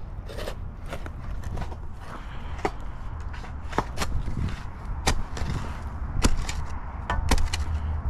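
Steel shovel blade chopping and scraping into packed dirt and grass roots by hand, a series of sharp, irregular strikes, several a second at times, over a low steady rumble.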